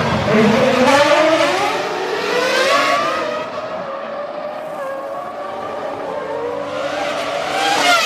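Formula One cars' V10 engines revving hard, the pitch rising and dropping several times as they accelerate, shift and brake. The sound swells loudest at the start and again near the end as cars pass close.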